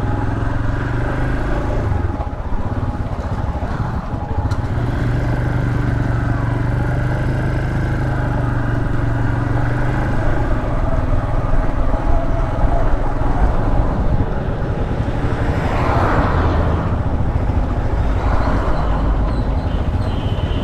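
Royal Enfield Himalayan 411's single-cylinder engine running steadily while the motorcycle is ridden on the road. The engine note dips briefly about two seconds in and again near four seconds, and there is a short rush of noise about sixteen seconds in.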